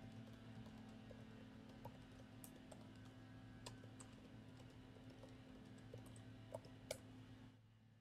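Near silence: faint room hum with sparse, light clicks, two slightly louder ones near the end. The hum cuts off just before the end.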